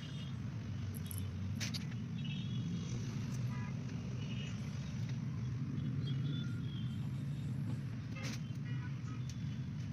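Steady low rumble of outdoor background noise, with a few faint clicks and short high chirps scattered through it.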